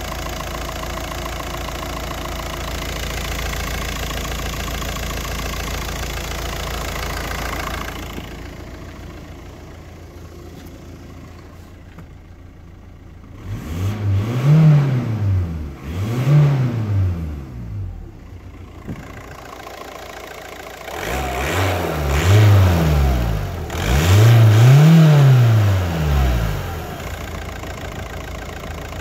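VW Golf 5's 2.0 TDI BMM four-cylinder turbodiesel idling, then revved four times from inside the car, each rev rising and falling back before it settles to idle again.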